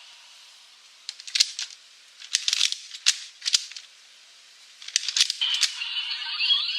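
Plastic clicks and rattles from a Kamen Rider Revice transformation stamp toy being handled and pressed, in several quick clusters. Near the end, the toy's electronic sound effect starts playing.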